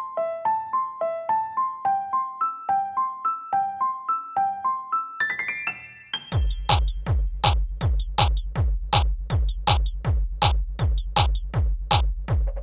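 Music: a repeating piano-like arpeggio, a quick rising run, then a heavy electronic beat with a deep kick drum comes in about six seconds in.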